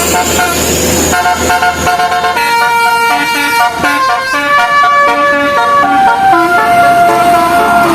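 A multi-tone bus 'telolet' (basuri) horn plays a tune in held notes that step up and down in pitch, starting about two seconds in after a stretch of noisy vehicle sound.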